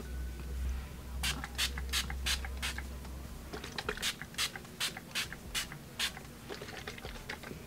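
Makeup setting spray pump bottle misting the face: a long run of quick, short sprays, about three a second, for around five seconds.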